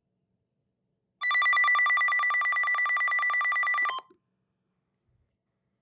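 First Alert WX150 weather radio sounding its alert siren in siren-test mode: a rapidly pulsing electronic alarm tone that starts about a second in, lasts nearly three seconds and cuts off.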